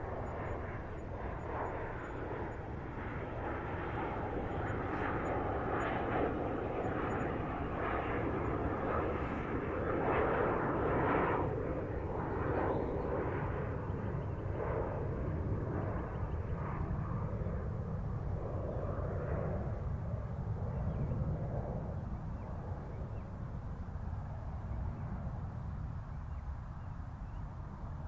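Jet airplane flying past: its engine noise grows steadily to its loudest about ten seconds in, then slowly fades away.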